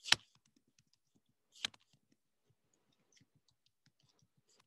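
Typing on a computer keyboard: many soft keystrokes, with two louder clicks, one at the start and one about a second and a half in.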